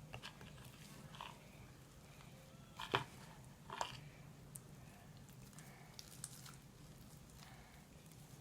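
Homemade slime being squished and kneaded by hand: faint, scattered wet squelches and sticky clicks, the loudest about 3 seconds in, over a low steady hum.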